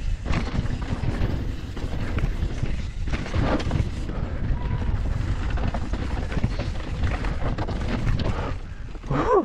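Wind buffeting the microphone of a handlebar- or helmet-mounted action camera, over the rumble of tyres and constant small rattles of a YT Decoy electric mountain bike descending a dirt singletrack at speed. A brief rising-and-falling sound breaks through near the end.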